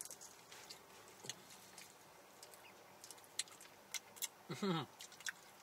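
Quiet eating sounds: scattered small clicks and smacks of chewing and handling food, with a short hummed voice sound about four and a half seconds in.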